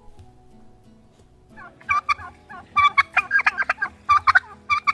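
Turkey gobbling: after a short quiet start, a series of rapid, rattling gobbles begins about one and a half seconds in and repeats several times.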